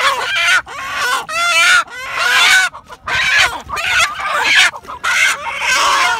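Chickens squawking loudly and repeatedly as they are caught and held by hand: a run of harsh, pitch-bending calls, several a second with short gaps between bursts.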